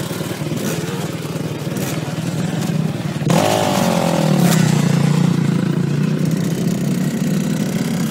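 Motocross bike's engine running at idle, then revving up sharply about three seconds in as the bike pulls away, and running on steadily.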